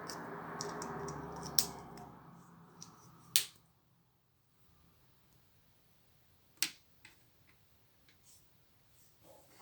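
Plastic Lego pieces being handled and pressed together: three sharp clicks with fainter ticks between them. A steady background noise fades out about two seconds in.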